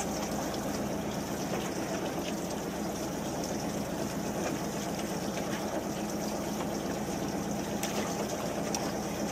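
Fishing boat's engine running at idle with a steady low hum, mixed with water lapping against the hull.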